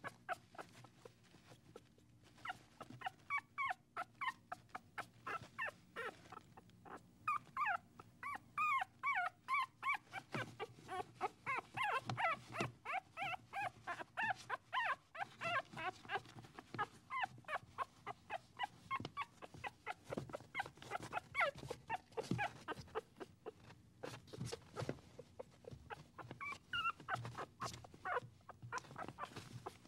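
A dog whimpering and yipping in a long run of short, high-pitched, wavering calls, several a second, thinning out near the end.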